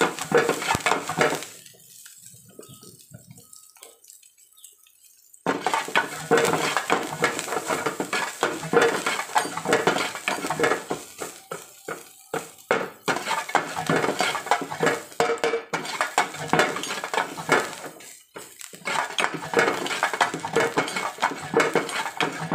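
Metal spatula scraping and clattering against a frying pan as okra is stirred, in quick irregular strokes. There is a quieter pause of about four seconds starting about two seconds in.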